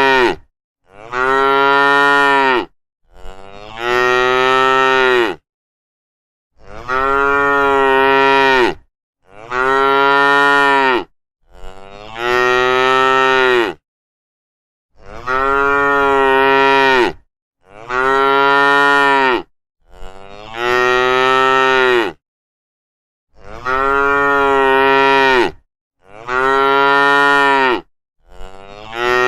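Cows mooing: a run of long moos, each about two seconds, about a dozen in all. They come in matching sets of three, with completely silent gaps between them, as if the same recording repeats.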